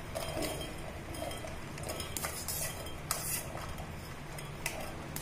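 Metal kitchen utensils clinking and scraping as boiled corn kernels are spooned into a mixer-grinder jar, with a few sharp clicks about two to three and a half seconds in and again near the end.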